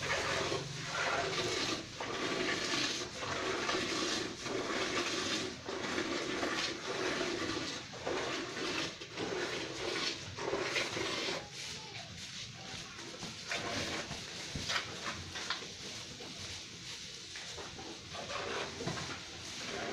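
Cow being milked by hand: jets of milk squirting into a metal bucket, a hissing splash that pulses with each squeeze of the teats.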